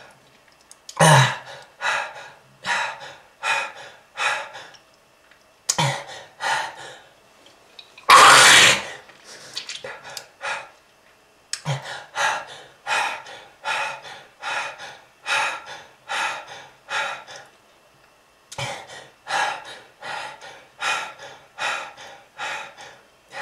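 A person coughing in long, repeated fits, about two coughs a second, with one longer harsh burst about eight seconds in. It is the cough of a smoker with lung disease.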